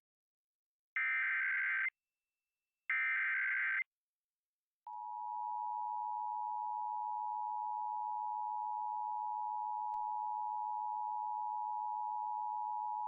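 Emergency Alert System activation tones: two short, buzzy SAME header data bursts about a second long and a second apart. After a short gap, the steady two-tone EAS attention signal (853 and 960 Hz) begins about five seconds in and holds.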